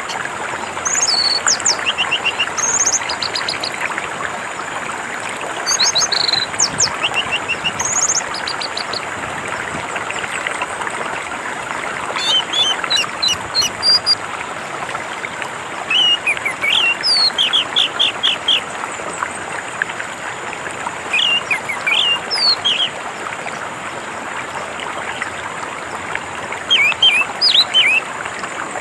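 Orange-headed thrush singing in short bursts of quick, high, slurred notes, about six phrases spaced a few seconds apart, over the steady rush of flowing water.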